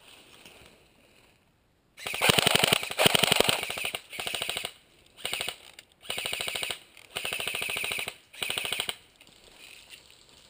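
Cyma electric blowback MP5 airsoft gun firing full-auto: one long burst of about two seconds, then several shorter bursts of rapid clacking.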